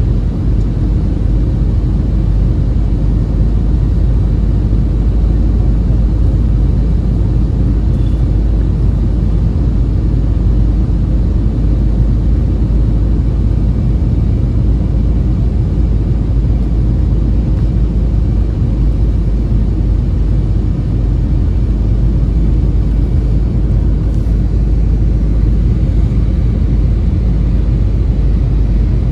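Steady low roar inside the cabin of an Airbus A320-family airliner: jet engines and airflow during the descent for landing.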